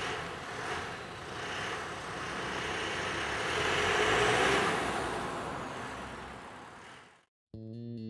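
Nissan Cabstar light box truck driving past: an even rushing sound of engine and tyres that swells to its loudest about four seconds in, then fades. It cuts off suddenly about seven seconds in, and electric guitar music starts a moment later.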